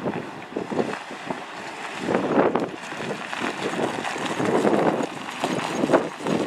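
2004 Chevrolet Silverado 3500 service truck driving up close, its engine and tyres growing louder from about two seconds in, under gusty wind buffeting the microphone.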